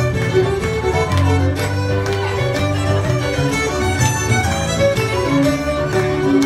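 Cape Breton fiddle music: bowed fiddle melody over keyboard accompaniment with low bass notes and a steady beat.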